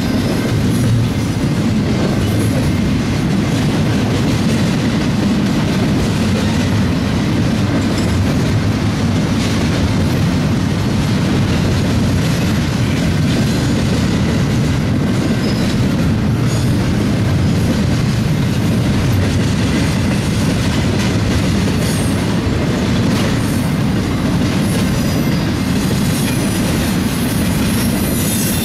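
Double-stack intermodal freight train's well cars rolling past at steady speed: a loud, continuous rumble of steel wheels on rail, with a few faint clicks here and there.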